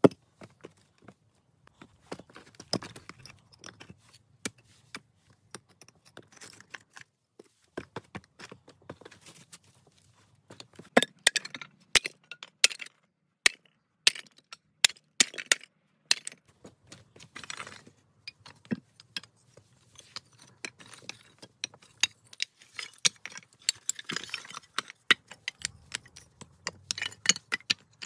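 Pieces of broken terracotta tile and stones clinking and clacking against each other as they are set down and shifted by hand, many sharp clinks in uneven clusters.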